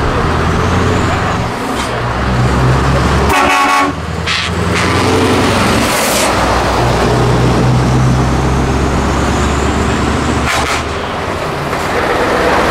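Loud Scania V8 truck engines with open exhaust pipes running as the trucks drive past. A short truck horn blast sounds about three and a half seconds in.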